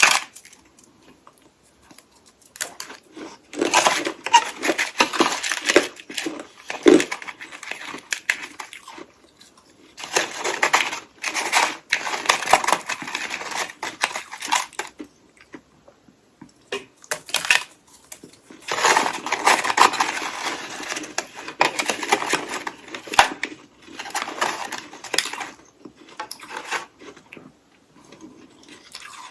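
Hollow ice sticks coated in freezer frost being bitten and chewed: three long bouts of dense crunching with short pauses between them.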